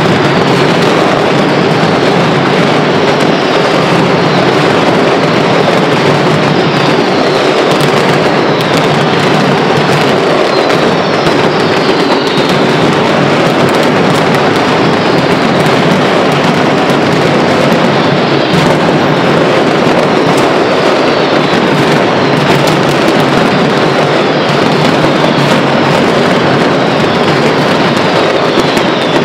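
Mascletà firecrackers going off in a dense, unbroken barrage of rapid bangs and crackling, with short falling whistles repeating over it through the first half.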